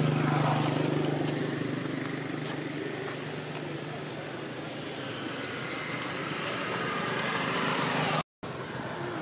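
A motor engine's steady hum, loudest about half a second in, then slowly fading. A short gap of silence breaks it near the end.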